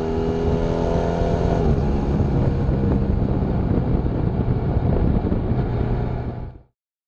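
BMW F800 GS parallel-twin motorcycle running, its exhaust note falling in pitch about two seconds in and then settling into a rougher rumble. The sound cuts off suddenly near the end.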